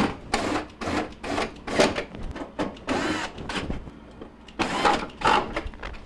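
Cordless drill/driver running in a series of short bursts, with brief pauses between runs, as it drives quarter-inch screws into the corners of a refrigerator's plastic freezer back panel.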